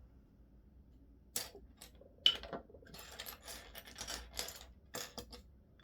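Plastic LEGO pieces clicking and rattling as they are handled and pressed together. A couple of separate clicks, the sharpest about two seconds in, are followed by a run of quick small clatter.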